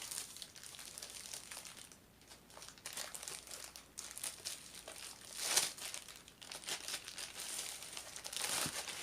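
A diamond painting canvas being unfolded and handled, crinkling and rustling, with louder crinkles about halfway through and again near the end.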